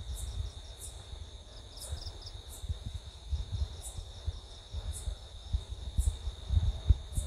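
Night insects calling: a steady high trill with short, higher chirps about once a second. Underneath are low rumbling and irregular bumps on the microphone.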